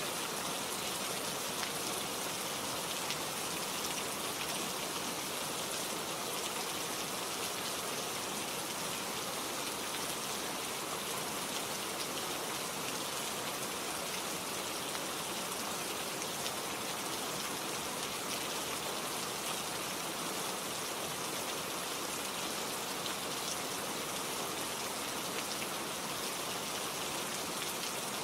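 Steady rain falling, with a dense patter of drops striking leaves and surfaces close by.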